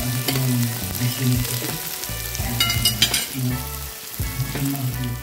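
Meat, shrimp and vegetables sizzling on a hot tabletop grill plate, a steady frying hiss, with a few light clicks about halfway through and background music underneath.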